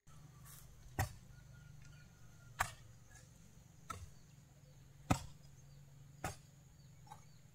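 A hand tool chopping in a steady rhythm: five sharp blows, roughly one every second and a quarter, with a low steady hum underneath.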